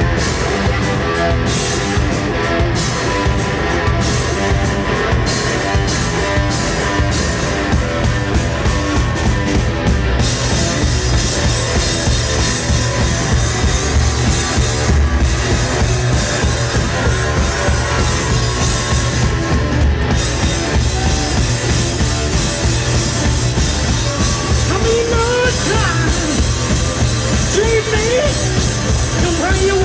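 Live rock duo playing a loud instrumental passage: an SG-style electric guitar over a drum kit. The first ten seconds are choppy and stop-start, and there are notes bending in pitch near the end.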